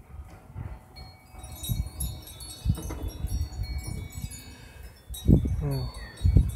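Wind chimes ringing, several high tones overlapping and hanging on from about a second and a half in. A low rumble runs underneath, with two louder bumps near the end.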